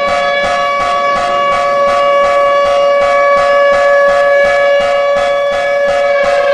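Emergency alert alarm: a loud, steady chord of several held tones with a quick, even pulse running beneath it.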